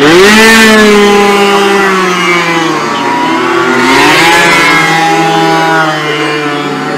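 Racing motorcycles at full throttle, engines revving high. One comes through at the start, its note rising sharply and then slowly falling; a second note climbs about four seconds in.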